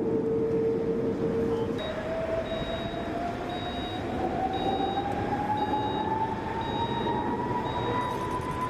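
A machine whine over a steady rushing noise: one steady tone that steps up about two seconds in, then climbs slowly. From about two seconds in, a short high beep repeats about once a second.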